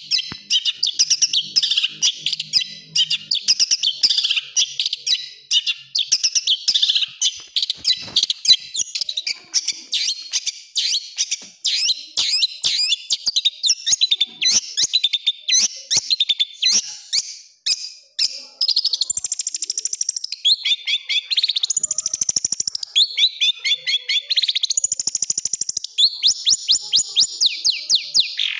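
A long-tailed shrike (cendet) singing a dense run of fast, rough, chattering notes. About two-thirds of the way in it shifts to higher whistled phrases and quick trills.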